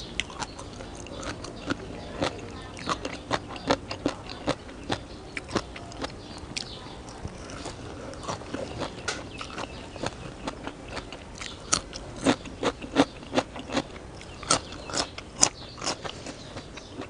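Close-up chewing of a lettuce-wrapped bite of spicy papaya salad: wet, crunchy mouth sounds made of sharp, irregular clicks. The clicks come thicker and louder about twelve seconds in.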